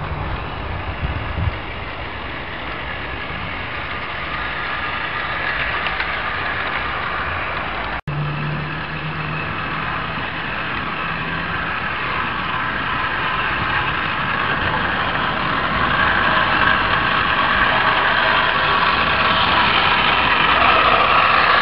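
Electric model railway locomotive running along the track, its motor whining over the rumble of wheels on rail, getting gradually louder toward the end. It breaks off sharply for an instant about eight seconds in.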